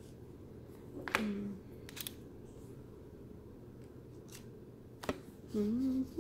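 Hands handling small items, giving a few sharp separate clicks and taps, with a short hummed "mm" near the end.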